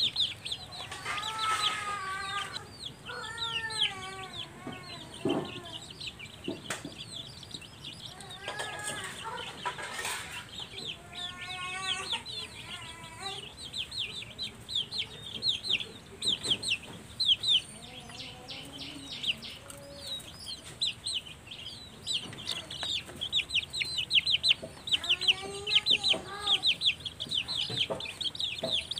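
Young chickens peeping steadily, a dense run of rapid high-pitched peeps, with a few louder, lower calls near the start, in the middle and near the end.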